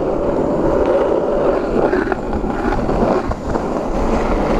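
Wind rumbling steadily on a handheld camera's microphone outdoors, with street noise underneath.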